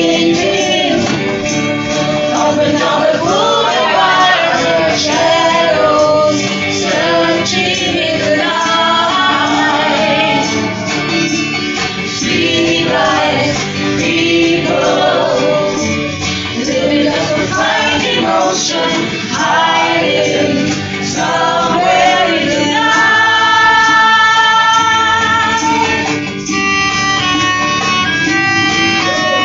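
A mixed group of men and women singing a song together to acoustic guitar accompaniment, a male voice leading at the microphone. The voices hold a long chord about three quarters of the way through.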